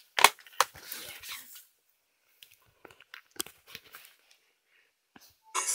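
Handling noise: scattered clicks, knocks and rustles close to the microphone, with two louder knocks in the first second and softer ones a few seconds in. A karaoke backing track starts near the end.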